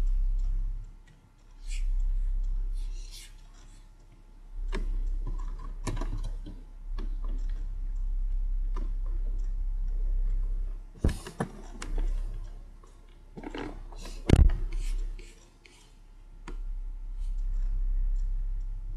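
Computer mouse clicking several times, with one sharp click about fourteen seconds in, over a low hum that swells and fades.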